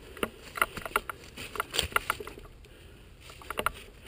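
Irregular sharp clicks and clacks in three quick clusters: about a second in, near two seconds, and again near the end.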